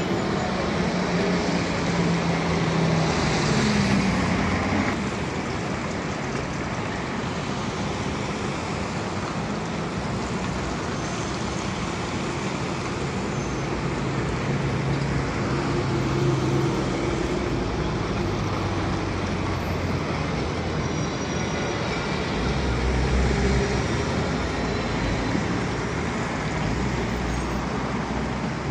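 City road traffic: buses and cars driving past over a steady hum of traffic noise. Low engine drone swells as vehicles pass near the start, around the middle and near the end.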